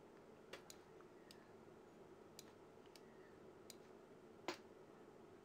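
Near silence broken by a few faint, scattered computer mouse clicks, with one louder click about four and a half seconds in.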